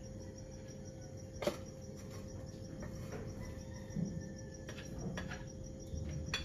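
Crickets chirping faintly in an even pulse over a steady low hum. A few light clicks and knocks, the sharpest about 1.5 s in, come from a rice cooker's aluminium inner pot, its lid and a plate being handled.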